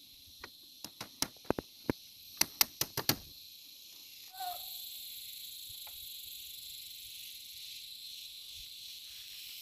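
Steady high-pitched drone of forest insects, with a quick run of about a dozen sharp knocks or taps in the first three seconds, loudest near the end of the run, and a brief squeak about four and a half seconds in.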